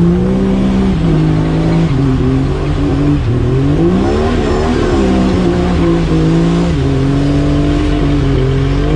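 Off-road Jeep engine revving under throttle, the pitch climbing and dropping several times as the revs go up and down.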